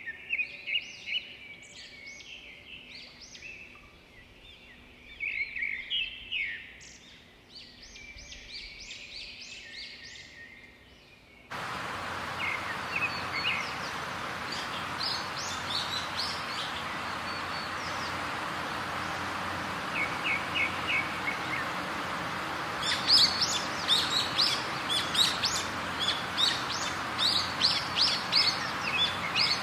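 Birds chirping and singing. About eleven seconds in, the sound changes abruptly to a steady rush of running stream water, with birds still chirping over it and more of them near the end.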